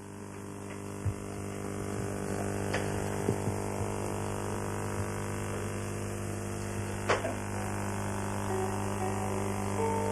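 Steady electrical mains hum with its overtones, fading in over the first couple of seconds, with a few faint clicks. Faint music notes begin near the end.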